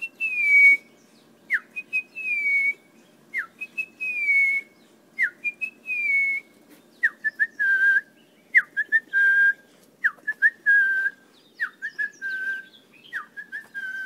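A person whistling an impression of an orange-breasted bush-shrike's call. It is a phrase of a quick downward slur followed by a held, slightly falling note, repeated about every two seconds. About halfway through the phrase shifts lower, with a couple of short notes before the held note.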